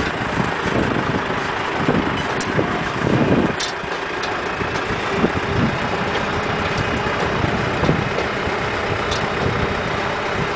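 Tractor engine running steadily at low speed while pulling a passenger trolley, heard from on board, with a few short clicks.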